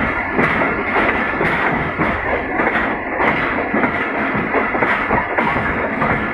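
Passenger train running on jointed track, its wheels clattering steadily with irregular knocks over rail joints. Heard from an open coach doorway, close alongside another train on the adjacent track.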